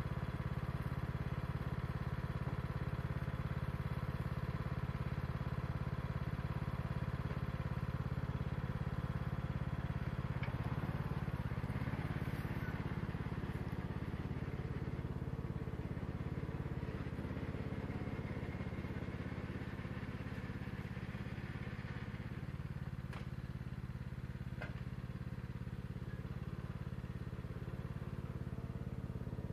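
Troy-Bilt Bronco lawn tractor's 19 hp Kohler Courage engine running steadily. Its note shifts about ten seconds in, and it grows slightly fainter later as the tractor drives off towing the loaded log cart. Two sharp knocks come about two-thirds of the way through.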